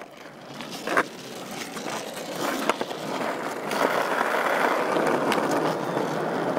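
Skateboard wheels rolling on asphalt, growing louder over the last few seconds, with a sharp knock about a second in.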